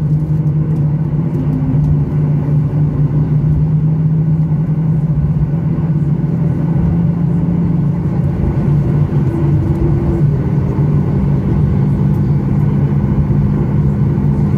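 Cabin noise of a Boeing 737 MAX 8 taxiing: the CFM LEAP-1B turbofans at low taxi power give a steady low hum over a constant rumble.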